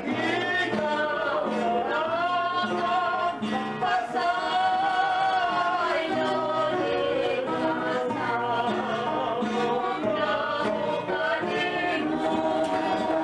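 Voices singing a traditional Christmas song to plucked guitar and banjo accompaniment.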